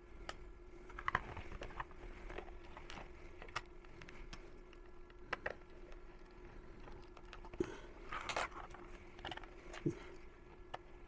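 Scattered small clicks, taps and a brief rustle from handling the plastic remote control and its small parts during a battery-compartment repair, over a faint steady hum.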